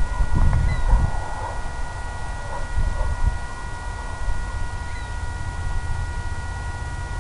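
Low gusty rumble, strongest in the first second, under a steady high electronic whine of several pitches.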